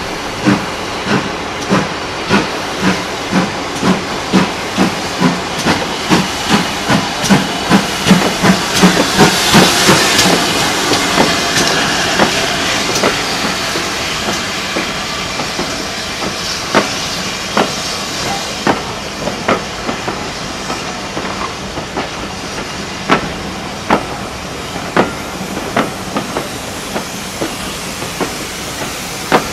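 GWR 4200 class 2-8-0 tank engine 4270 working a train past, its exhaust beats coming evenly, with a loud rush of steam hiss as the locomotive goes by. Then the coaches roll past, their wheels clicking over the rail joints.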